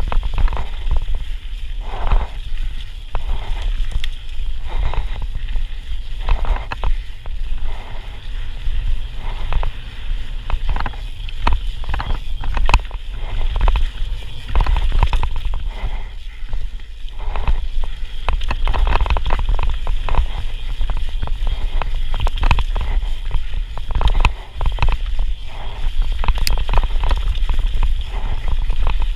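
Santa Cruz Megatower enduro mountain bike riding fast down a dirt singletrack: wind rumbling over the action camera's microphone, tyres rolling over dirt, roots and rocks, and an irregular rattle of chain and suspension knocks throughout.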